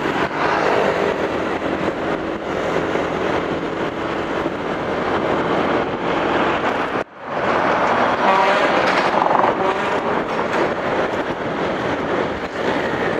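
Road traffic on a busy street: engines and tyres in a steady, dense rumble, heard while travelling with the traffic. The sound drops out briefly about seven seconds in, then comes straight back.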